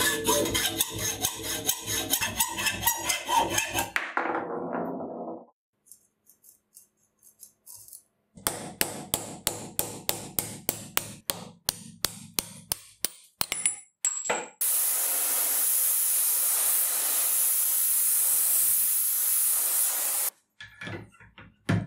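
Hacksaw strokes that stop about four seconds in. After a short quiet comes a quick, even run of sharp taps, about three a second, for some six seconds. Then a gas torch flame hisses steadily for about six seconds and cuts off suddenly, and a few hammer knocks follow near the end.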